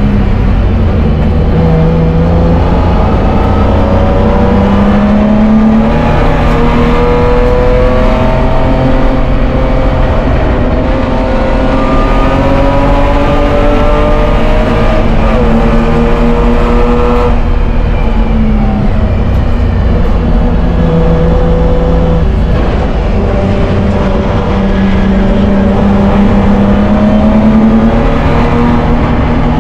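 BMW E30 race car's straight-six engine heard from inside the stripped cabin, run hard at high revs. Its pitch climbs and drops back several times as it is shifted and lifted for corners.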